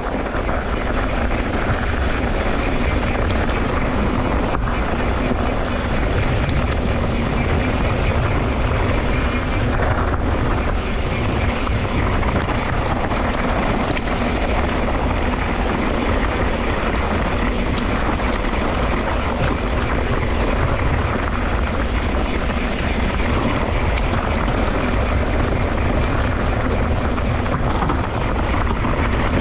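Steady rush and low rumble of wind buffeting the camera microphone while riding a mountain bike.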